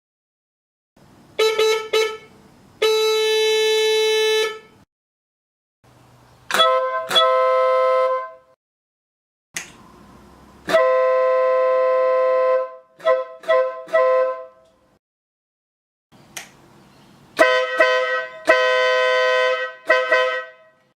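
Motorcycle horns sounded four times, each time as a few short beeps and then a long blast of about two seconds. The first round is a single-tone horn, the Yamaha Zeal's stock 12 V horn; the next three are a two-tone 12 V electric air horn fitted in its place.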